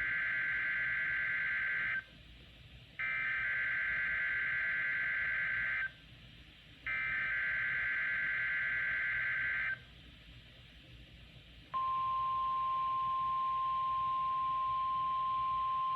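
Emergency Alert System test on NOAA Weather Radio played through a Sangean CL-100 weather radio: the raspy two-pitch SAME digital header, heard as three data bursts of about three seconds each a second apart, the first already under way. About two seconds after the last burst, the steady 1050 Hz warning alarm tone begins and holds.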